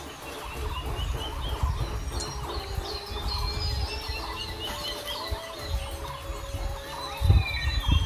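Forest birds chirping, with many short repeated calls and a long steady note in the middle, over a low rumble. A couple of sharp thumps near the end.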